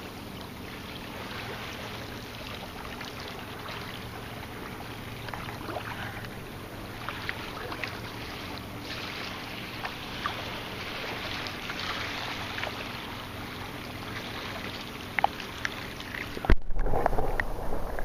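Underwater lake ambience picked up by a submerged waterproof camera: a steady hiss of moving water with scattered faint ticks and crackles. Near the end it cuts out for an instant and comes back louder, with a lower sloshing rumble.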